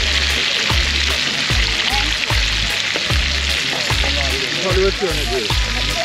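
Hot oil sizzling steadily in a skillet as dove pieces fry. Background music with a steady low beat plays underneath.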